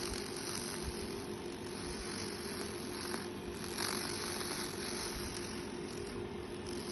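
Laser cleaning machine running as it strips the old wooden rudder's surface: a steady buzzing hiss over a constant low hum.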